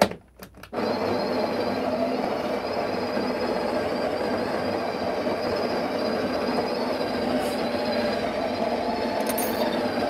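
A few short knocks as a portafilter is pushed into the grinding cradle, then the Breville Barista Express's built-in conical burr grinder starts under a second in and runs steadily, grinding espresso beans.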